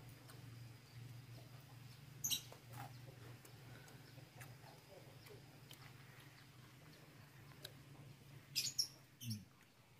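Faint outdoor background: a steady low hum, with a few short chirps, one about two seconds in and a quick cluster near the end.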